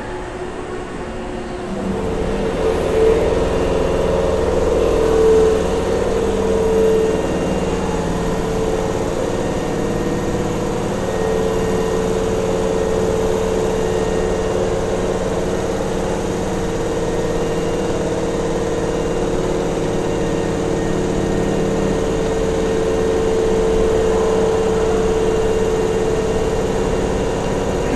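Hankyu commuter train standing at the platform with its doors open, its onboard equipment humming steadily. A held mid-pitched tone with a lower one beneath comes in about two seconds in and carries on unchanged.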